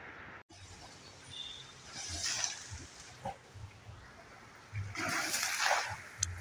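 Water splashing as an Asian elephant moves in a shallow, muddy river, in two bursts: a short one about two seconds in and a longer one about five seconds in.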